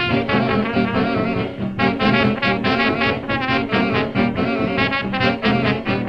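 Background music: a lively tune of quick, wavering notes over a steady low accompaniment.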